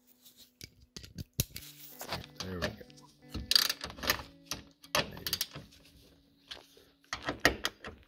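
Hand ratchet and socket snugging down seat-belt anchor bolts: irregular sharp clicks and metallic clatter of the tool on the bolts, with faint background music.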